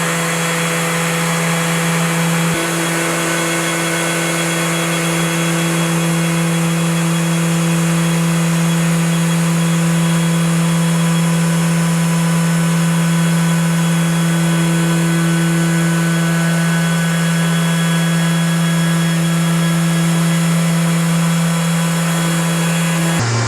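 Electric plunge router spinning an edge-profiling bit, running at a steady high speed with a constant hum and hiss.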